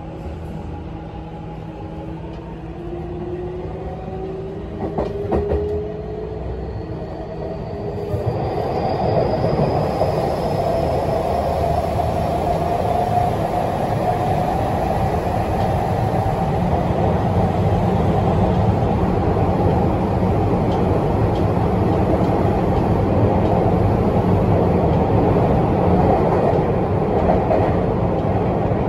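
Tokyu 5050-series electric train heard from inside the passenger car: the traction motor whine rises in pitch as the train picks up speed, with a single knock about five seconds in. About eight seconds in, the running rumble of wheels and motors grows louder with a high hiss added, as the train runs into a tunnel, and it stays steady.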